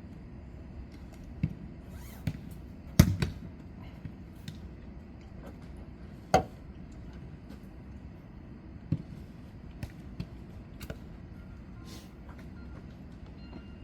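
Jokgu ball being kicked and bouncing during a rally: a string of sharp, separate thuds, the loudest about three seconds in, over a steady low hum.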